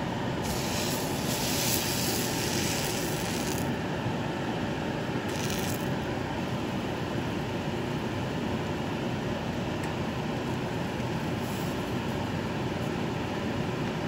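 Beaten eggs frying in a hot nonstick pan, sizzling. The hiss is loudest for the first few seconds after they go in and flares briefly again about five seconds in, over a steady low noise.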